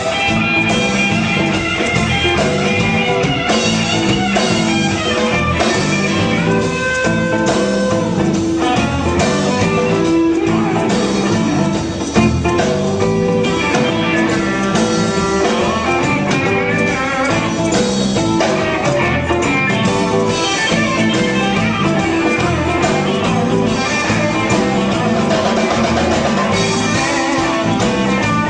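Rock band playing an instrumental passage of the song: guitar with drums, steady and loud.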